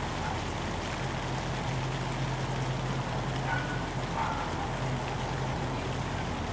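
Steady rain falling, an even hiss of drops on leaves and wet pavement, with a low hum that fades in and out underneath.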